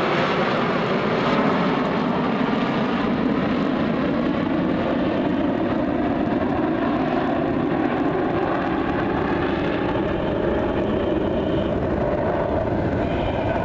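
Jet engines of a formation of Aermacchi MB-339 jet trainers flying overhead, a steady loud rushing noise with no break, a thin higher whine coming through near the end.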